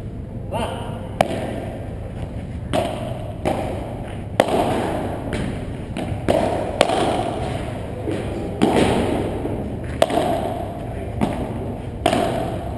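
Padel rally: sharp pocks of the ball struck by paddles and bouncing off turf and walls, about a dozen at irregular intervals, each echoing in a large hall.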